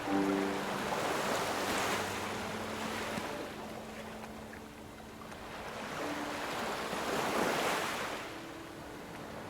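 Ocean waves washing in surf, swelling and ebbing, with surges at the start and again about three-quarters of the way through.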